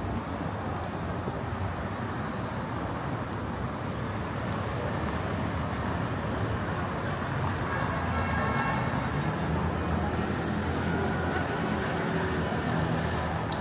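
City street traffic: a steady rumble of vehicles passing, growing louder in the second half, with a faint high tone for a few seconds about seven seconds in.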